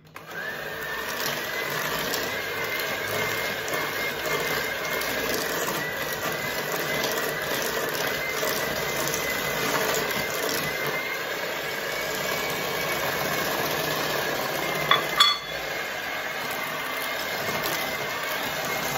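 Handheld electric mixer switched on and running steadily, its beaters whirring through a batter of creamed butter, sugar and egg in a stainless steel bowl. A brief clatter comes about fifteen seconds in.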